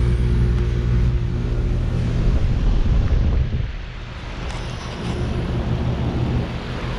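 Carrier Comfort 15 heat pump outdoor unit running in heat mode: the steady hum of its Emerson scroll compressor under the whoosh of the fan. The low hum drops back about halfway through.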